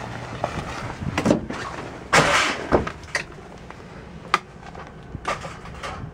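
Scattered knocks and clicks inside an airliner cabin, the loudest a short scraping burst about two seconds in, over a low steady hum.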